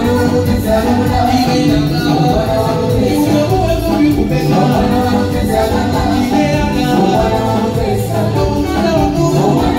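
Band music with a singer over a steady beat, playing without a break.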